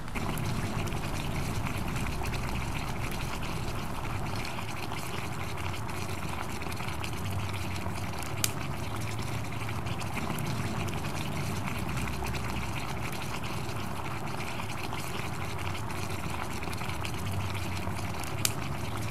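Water in a plastic bucket seething and bubbling steadily around fire-heated quartzite stones, with a sharp crack about eight seconds in and another near the end.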